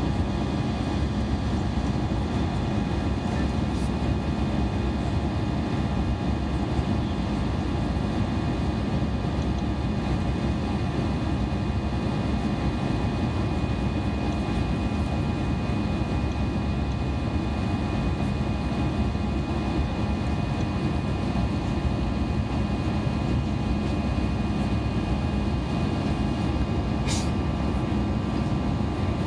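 Steady jet engine drone and rushing airflow heard inside the cabin of an Airbus A320 climbing after takeoff, with a thin steady whine over the low rumble.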